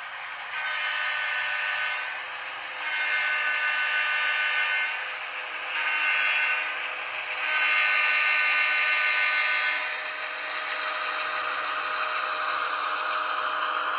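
A model diesel locomotive's onboard sound system blowing its horn in the grade-crossing pattern: two long blasts, a short one, then a long one. After that comes the steady rattling rumble of the model train rolling along the track.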